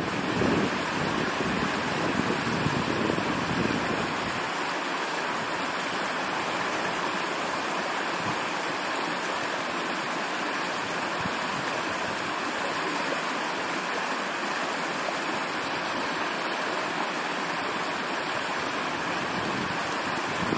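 Steady rush of flowing water from a stream. For the first few seconds a low rumble of wind on the microphone lies over it.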